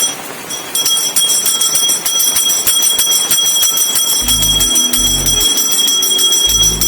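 Background music: bright, bell-like chiming with a steady tick, joined by low bass notes in a slow rhythm about four seconds in.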